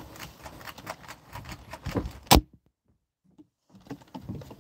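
Small plastic clicks and rattles of a Nerf blaster being handled, with one sharp loud snap about halfway through. Right after the snap the sound cuts out completely for about a second, then the light clicking resumes.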